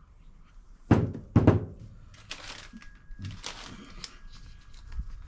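Two sharp thunks about half a second apart, objects knocked down on a workbench, followed by quieter handling and rustling of parts.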